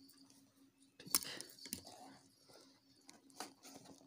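Hands handling a cardboard smartphone box as it is opened: a sharp tap about a second in, then lighter cardboard rustling and a few small taps.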